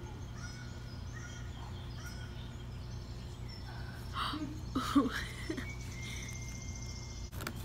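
Indoor room ambience: a steady low hum with faint, scattered short sounds, and a few louder brief sounds about four to five seconds in.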